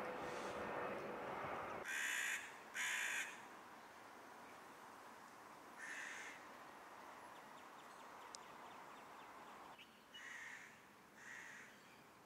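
Crow cawing: two loud caws in quick succession about two seconds in, then a fainter caw and two more faint caws near the end. A steady noise at the start cuts off abruptly just before the first caw.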